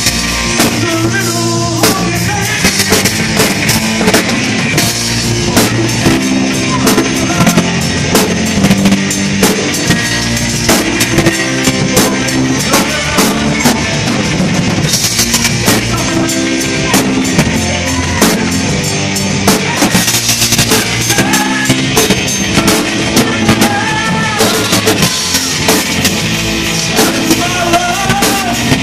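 Live band playing loud amplified music through a bar PA: a drum kit keeps a steady beat under electric bass notes and keyboard.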